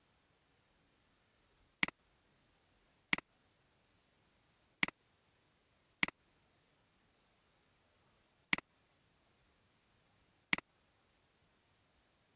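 Computer mouse clicking, six sharp single clicks spaced a second or two apart, as the video player is scrubbed back and forth.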